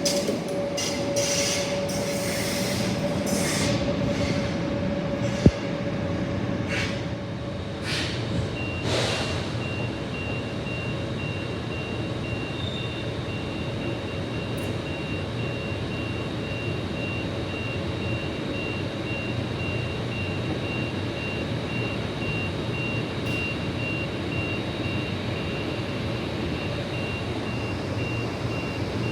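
A train running through the station with a held squeal and a series of knocks that die away over the first nine seconds or so, over a steady low rumble. About nine seconds in, a regular high-pitched electronic beeping starts and keeps going.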